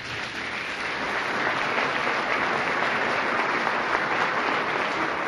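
Audience applauding: many hands clapping together, swelling over the first second and then holding steady.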